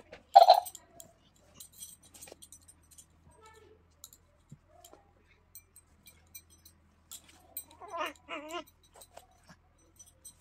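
Short voice-like sounds: a loud brief cry about half a second in and a short wavering call about eight seconds in, with faint scattered clicks of handling between them.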